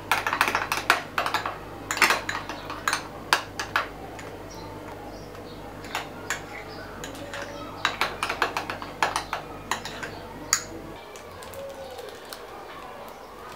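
A spoon clinking and tapping quickly against a small bowl as icing is stirred, with a second run of clinks and taps about eight seconds in. A low steady hum cuts out about eleven seconds in.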